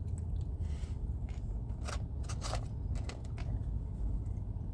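Scattered faint clicks, crinkles and scrapes of food and its packaging being handled during a meal, over a steady low rumble.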